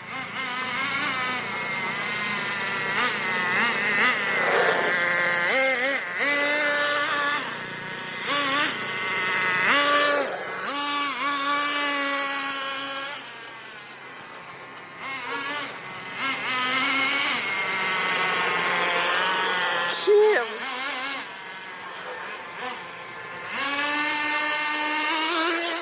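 Small buggy's motor revving up and down as it is driven, its pitch rising and falling again and again, with two quieter lulls.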